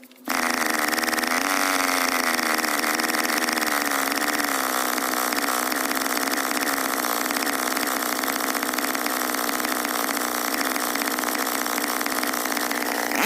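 An 070 two-stroke chainsaw cuts in abruptly and runs steadily at high speed, its pitch holding nearly level.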